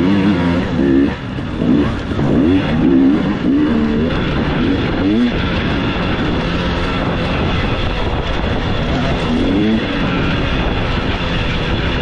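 Dirt bike engine noise. It revs up and down repeatedly over the first few seconds, settles into a steadier drone, then revs a few more times near the end.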